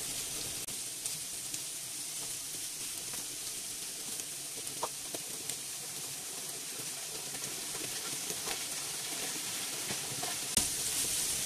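Chicken pieces frying in olive oil in a frying pan, a steady sizzle, with a few light clicks of metal tongs against the pan as the pieces are turned over.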